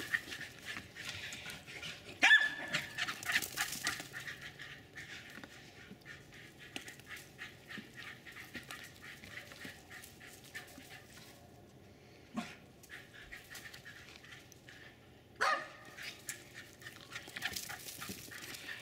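Jack Russell terrier giving a few single sharp barks, the loudest about two seconds in and another near the end, between stretches of quick rustling footfalls over dry grass as the dogs run.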